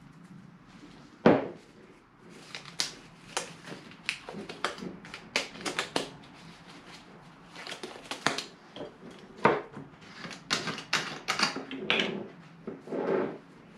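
A strip of sandpaper worked back and forth around a golf club ferrule, shoe-shine style, to turn it down by hand: uneven bursts of rasping and scraping with a few sharp knocks, the loudest about a second in.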